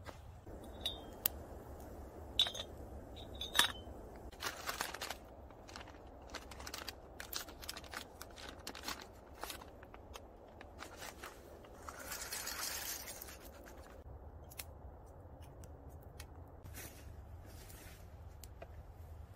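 Small twig-burning stove fire crackling, with dry twigs and grass snapped and fed in, giving scattered sharp snaps and scrapes. A brief rushing hiss comes about twelve seconds in.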